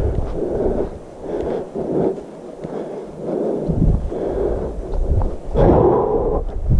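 Fast, rhythmic breathing of the hiker wearing the camera, over a low wind rumble on the microphone that drops out for a moment around the middle.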